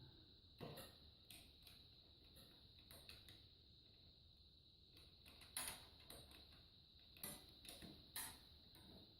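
Near silence, with a few faint, scattered clicks and knocks over a steady faint high-pitched whine.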